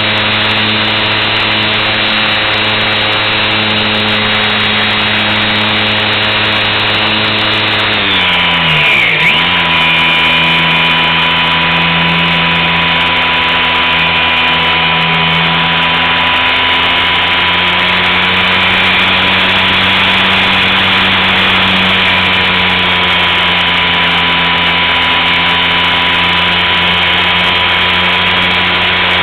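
Electric motor and propeller of a Super Cub LP radio-controlled model plane, heard from a camera on board: a steady whine that drops sharply in pitch about eight seconds in as the throttle is pulled back. It then holds a lower pitch, rising slightly again a few seconds later.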